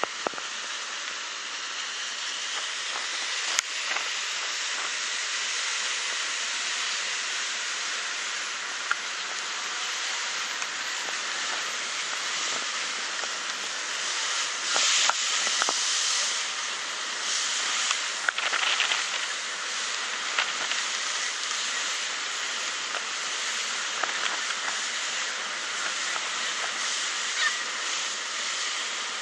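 Steady rushing hiss of wind and water heard from the deck of a moving river ferry, swelling briefly about halfway through, with a few short clicks.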